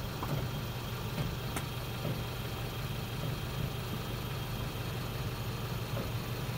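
Mercedes-Benz C300 engine idling with a steady, even hum.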